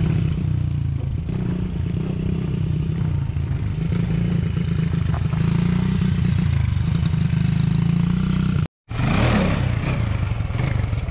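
Small pit bike engine, a Honda 50cc bored out to 90cc, running steadily at part throttle as it is ridden along. Near the end, after a sudden cut, a Honda TRX300EX quad's single-cylinder engine revs up and down during a wheelie.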